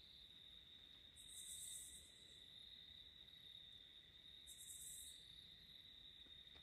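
Near-quiet woods with a faint, steady, high-pitched cricket trill, and two short, fainter, higher hissing buzzes about a second in and again about four and a half seconds in.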